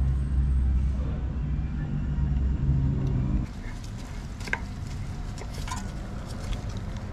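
A vehicle engine runs with a steady low rumble for about three and a half seconds, then cuts off abruptly. Quieter handling follows, with a few light clicks as an oil filter is screwed on by hand.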